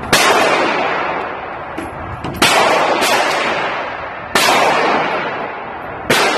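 Gunshots echoing in an indoor shooting range, five shots at uneven spacing, each a sharp crack followed by a long reverberating tail.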